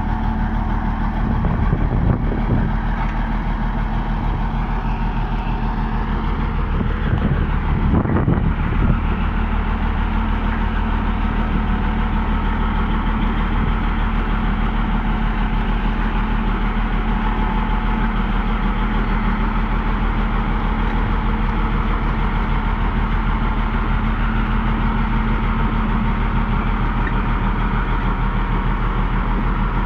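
Komatsu bulldozer's diesel engine running steadily at an even pitch, with a knock about two seconds in and another about eight seconds in.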